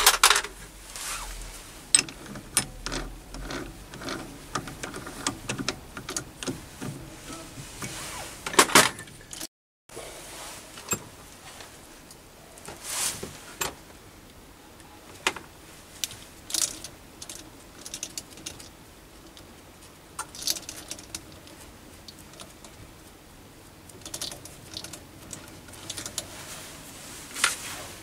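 Irregular metallic clicks and clinks from hand work on a mini lathe's three-jaw chuck: the jaws and the steel parts knocking together as they are adjusted.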